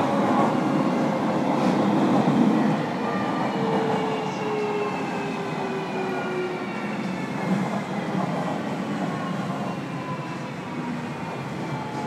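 JR Kyushu 305 series electric train heard from inside a motor car: the traction motor whine, several tones together, falls steadily in pitch over the rumble of wheels on rail as the train slows, and the overall sound eases off gradually.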